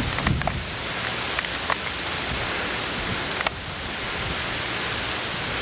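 Tropical-storm rain falling heavily in a steady hiss, with a few sharp ticks scattered through it.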